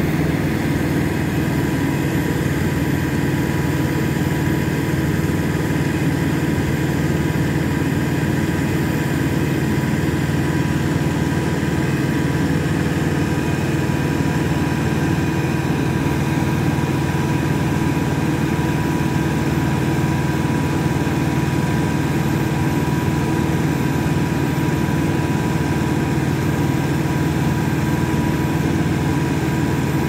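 Hidromek backhoe loader's diesel engine running steadily at an unchanging speed.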